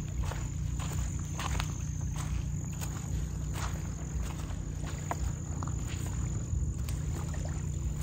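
Wind rumbling low and steady on the microphone, with small waves lapping and splashing irregularly at the lakeshore and a thin, steady high trill of insects.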